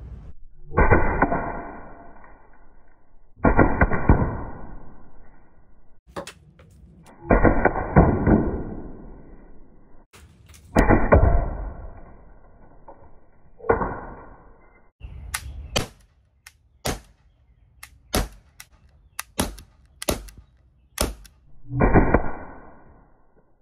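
Shots from an Umarex HDR 50 .50-calibre CO2 gun sending chrome steel balls into a coconut, mostly slowed down for slow motion: six drawn-out, ringing blasts that die away over a second or two. Between them comes a run of about eight sharp clicks and knocks at normal speed.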